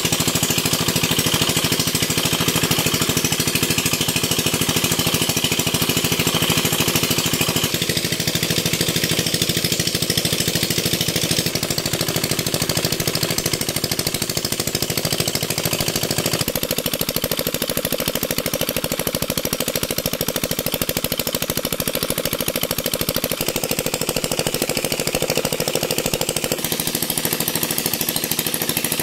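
Small stationary single-cylinder diesel engines running steadily with a rapid knocking beat, each driving an irrigation water pump, over the rush and splash of the pump's discharge jet pouring onto wet ground. The sound changes abruptly three times as different engines or viewpoints come in.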